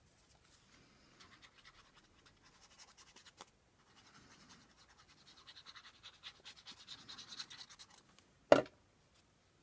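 Paper and craft materials scratching and rubbing on a work table as pieces are handled and pressed into place, busier from about halfway. One sharp knock comes near the end.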